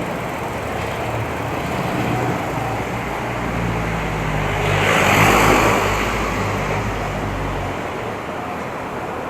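Street traffic noise: steady road noise with a motor vehicle's engine hum, and one vehicle passing close, loudest about five seconds in.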